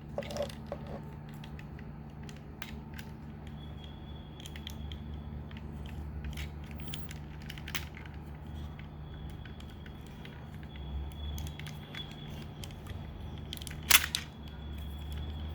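Small plastic clicks and creaks as a Transformers Masterpiece figure and its weapon accessory are handled and fitted together, with one sharper snap near the end. A steady low hum runs underneath.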